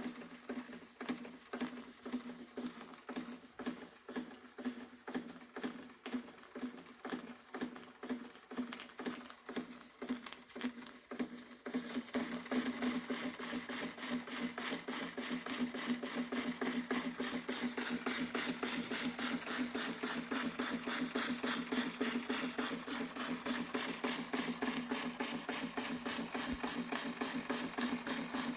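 Märklin 4112 spirit-fired toy steam engine running with an even, rhythmic beat. About twelve seconds in, it gets louder and the beat comes faster as the engine speeds up.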